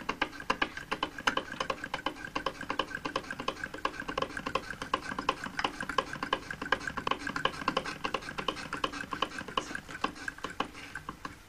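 Antique Willcox & Gibbs single-thread chain-stitch sewing machine running, a rapid, even clicking at several stitches a second.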